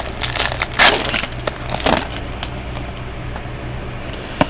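Crinkling and rustling as trading cards and their foil pack wrapper are handled, in irregular crackly bursts that thin out after about two seconds.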